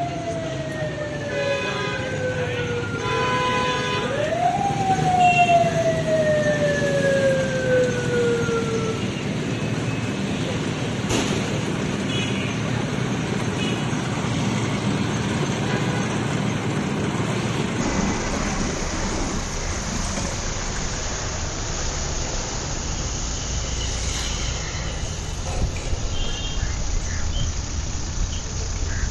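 Manual cotton candy machine's spinning head whining: the pitch jumps up quickly and then slides slowly down, twice in the first nine seconds, as the head is spun up and coasts. After that there is only steady street noise.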